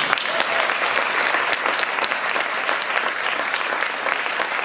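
Crowd of children and adults applauding steadily, many hands clapping.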